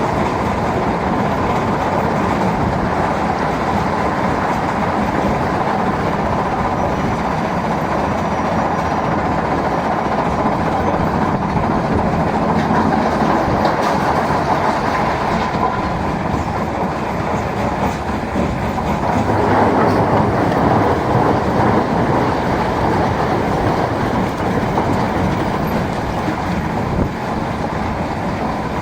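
A mobile stone crusher and an excavator running together: a loud, steady mechanical rumble with stones rattling through the machine, swelling a little about two-thirds of the way through.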